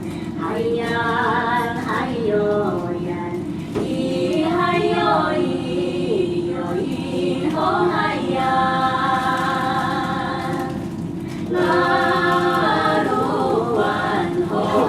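A choir singing a song in held, melodic lines, played back over a loudspeaker with a steady low rumble under it; the song draws on Taiwanese Aboriginal music.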